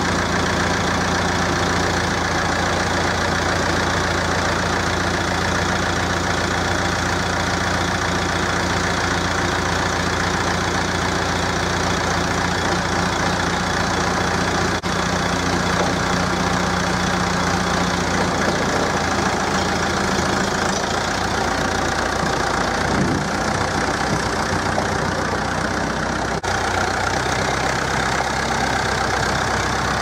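1967 Massey Ferguson 165 tractor engine running steadily at idle, its note shifting about two-thirds of the way through.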